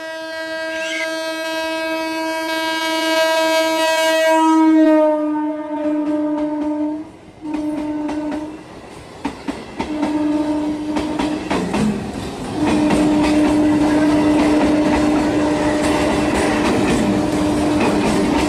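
Electric multiple unit train's horn sounding a long blast that dips in pitch about five seconds in, then two short blasts and another long held blast. Under it, the train's wheels clatter over the rail joints as it passes.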